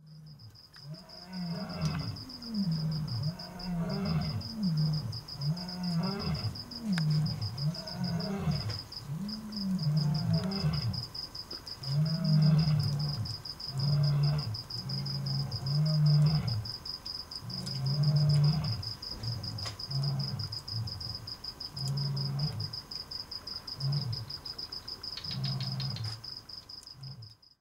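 Lion roaring: a long series of deep, grunting calls, about one a second, which start as rising-and-falling moans and become shorter, flatter grunts. A steady, rapid insect trill runs behind them.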